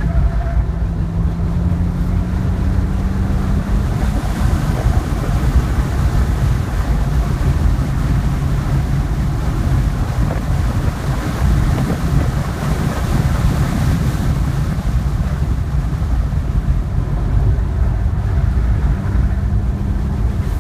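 Engine of a 2010 BMW 3 Series under hard acceleration on a race track, heard from inside the cabin: the engine note climbs over the first few seconds, then wind and road noise at around 100 mph swamp it, and the engine tone shows again near the end as the car slows for a corner.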